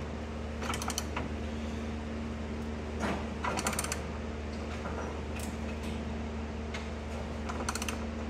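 Ratchet wrench clicking in three short bursts as a large nut on a combine's axle tie rod is tightened, over a steady low hum.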